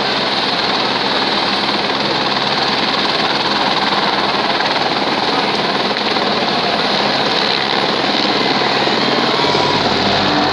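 Helicopter running with its rotor turning, a loud steady rotor and engine noise. About nine seconds in, the deep low sound changes as it lifts off.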